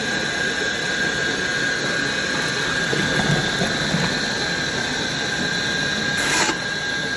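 Motor-driven belt-and-pulley drum mixer running steadily with a constant whine as it stirs a drum of liquid, while more liquid is poured in from a bucket. There is a brief knock about six seconds in.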